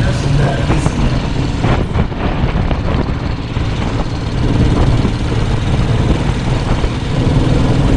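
Motorcycle engine running steadily while riding along a road, with wind and road noise over it.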